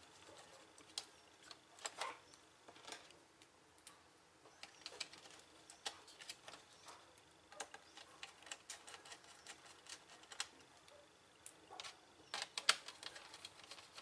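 Faint, scattered clicks and taps of a laptop's plastic cooling fan and small internal parts being handled and seated into the chassis, with a quick run of clicks near the end.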